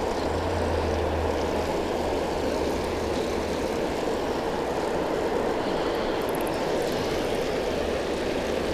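Steady rush of water pouring through a spillway, an even noise with a low rumble underneath that fades midway and returns near the end.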